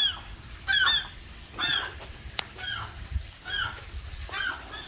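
Seagulls giving short, repeated alarm calls, about one call a second, six in all. The gulls are calling at an intruder, which is the behaviour of gulls that may be guarding a chick nearby. A single sharp click sounds about halfway through.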